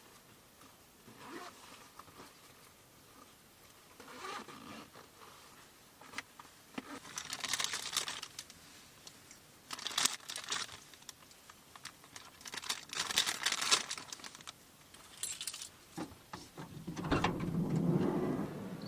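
Irregular bursts of rustling, crinkling and clattering as things are handled, with sharp clicks between them and a longer, fuller burst near the end.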